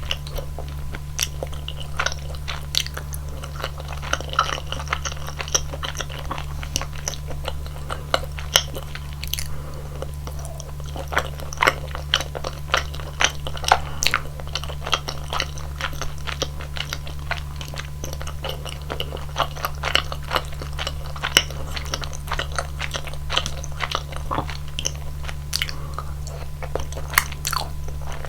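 Close-miked chewing of rosé tteokbokki, chewy rice cakes in a thick creamy sauce, with a steady run of small wet mouth clicks and smacks. A low steady hum sits underneath.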